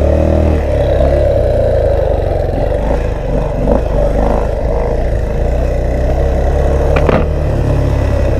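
Dirt bike engine running steadily at low revs, with wind noise on the helmet microphone; the rider has just said the bike is getting hot and has no power. A single sharp knock about seven seconds in.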